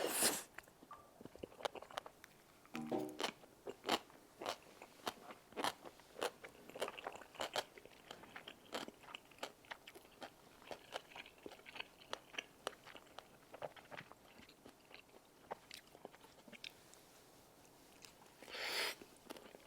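Close-miked eating sounds of a person chewing tteokbokki rice cakes with melted cheese: many short, sharp, wet mouth clicks and smacks. There is a brief hum about three seconds in and a louder breathy sound near the end.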